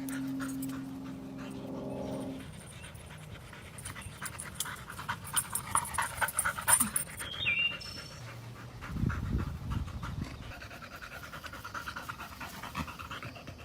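A dog panting in quick repeated breaths, with a steady low hum in the first two seconds and a brief high squeak about eight seconds in.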